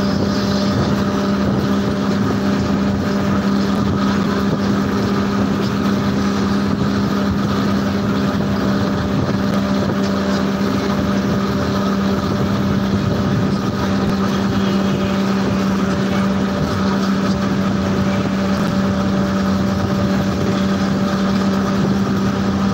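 A vehicle's engine running at a steady, unchanging hum, mixed with rushing road and wind noise, heard from on board while moving.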